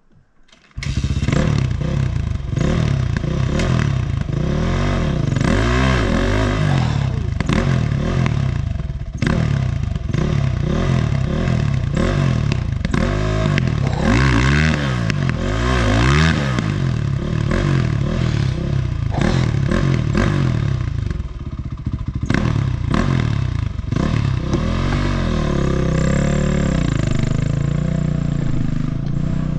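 Honda CR500's two-stroke single-cylinder engine revving up and down in repeated rises and falls while riding rough singletrack, with scattered knocks and rattles from the bike. The engine sound cuts in abruptly about a second in.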